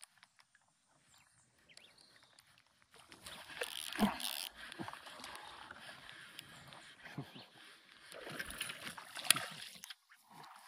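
Close handling noise of fishing tackle: rustles, scrapes and sharp clicks as a baitcasting reel and its line are worked with orange-handled pliers, with light water sloshing against the kayak. It starts about three seconds in, and the loudest clicks come about four and nine seconds in.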